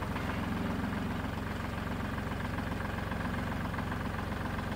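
Tractor engine idling steadily, close by.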